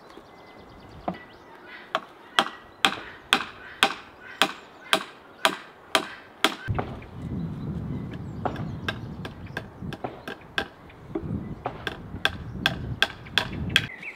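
Hammer driving nails into a wooden birdhouse on a tree, sharp strikes about two a second with a short pause near the middle. A low rumble sits underneath in the second half.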